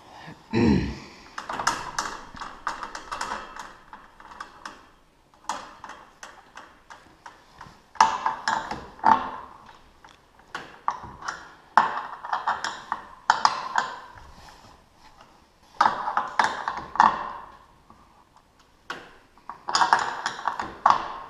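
Wrench tightening the adjustment bolt of a garage door opener's loose drive chain: bursts of rapid metallic clicking, each about a second long, repeated again and again, with a low thump at the start.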